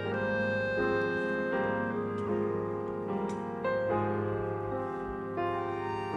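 Chamber orchestra playing slow music, led by grand piano chords over sustained notes; the harmony shifts about once a second.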